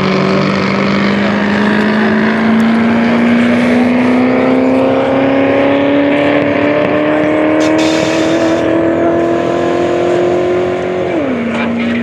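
Four-cylinder engine of the Nebulous Theorem 3 streamliner accelerating away on a land-speed run on the salt. Its note climbs steadily for about eleven seconds, then drops abruptly near the end.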